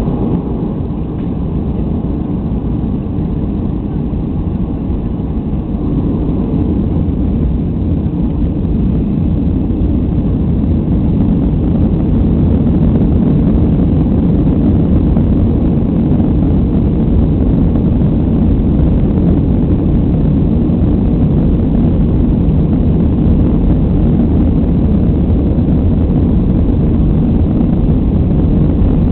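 Cabin noise of a Boeing 737-300 on its takeoff roll, heard from over the wing: a steady low rumble from its CFM56 turbofan engines and the rolling aircraft. It grows louder over several seconds as the aircraft gathers speed, then holds steady.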